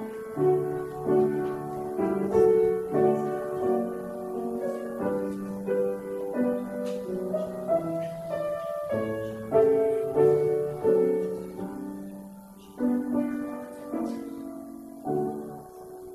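Instrumental piano music, a slow sequence of sustained chords.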